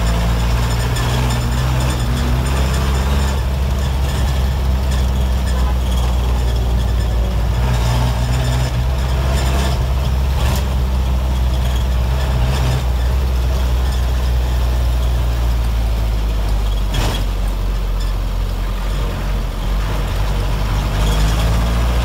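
The 1990s Mitsubishi diesel engine of an old medium bus running under way, heard from inside the cab: a loud, steady low drone whose pitch shifts a few times, with a couple of short knocks.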